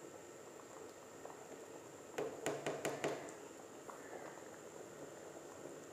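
Pan of lobia (bean curry) bubbling on the boil, faint and steady. A short run of sharp clicks comes about two seconds in.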